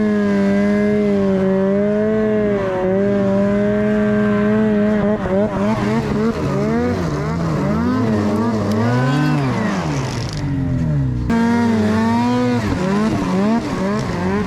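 Snowmobile engine running at a steady pitch, then revving up and down over and over. The sound cuts off abruptly about eleven seconds in and picks up again at a steady pitch.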